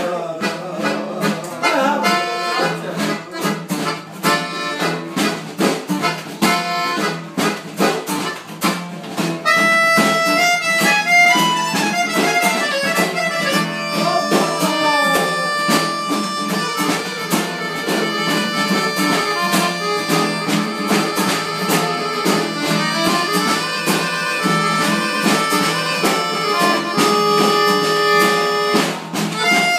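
Piano accordion playing a lively tune: a choppy, sharply beaten rhythm for about the first nine seconds, then a melody of long held notes.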